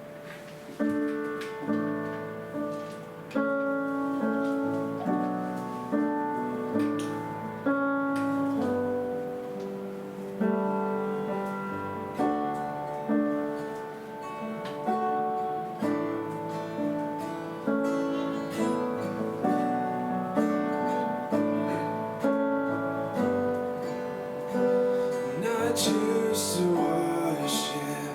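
Acoustic guitar and piano playing the slow instrumental introduction to a worship song, with sustained chords that change every second or two.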